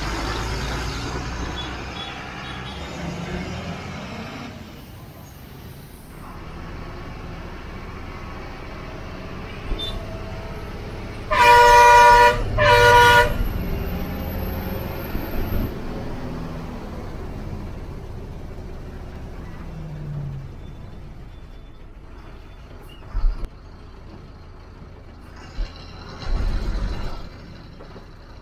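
Ashok Leyland 12-wheel diesel truck driving, its engine and road noise steady throughout, with two loud horn blasts about halfway through, the second one shorter. A short hiss comes near the end.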